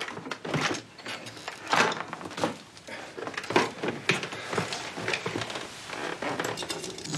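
Metal tools clinking and clattering while being rummaged through in a toolbox: an irregular run of small clicks and knocks.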